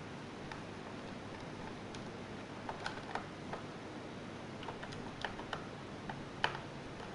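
Scattered light clicks and ticks from laptop parts being handled during disassembly, irregular and more frequent after the first couple of seconds, the loudest one near the end, over a steady hiss.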